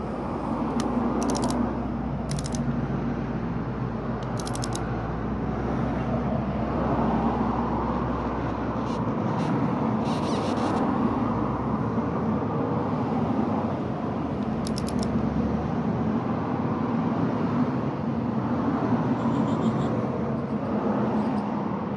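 A hand ratchet clicks in several short spells as the rocker rail bolts on a cylinder head are snugged down. Under it runs a steady rumble of road traffic.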